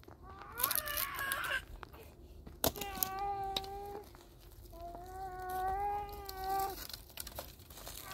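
A small child's drawn-out whining cries, three of them at one steady pitch, the last about two seconds long, with a few sharp snaps of dry twigs.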